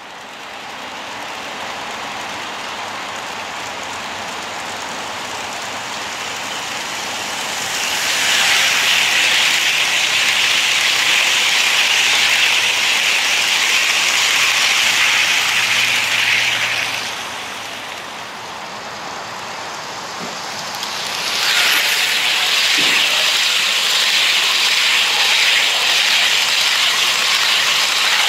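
HO-scale model passenger train, with Amtrak Superliner cars, rolling along sectional track, its wheels giving a steady rolling hiss and rumble. It gets louder twice as the cars pass close by, about eight seconds in and again about twenty-one seconds in.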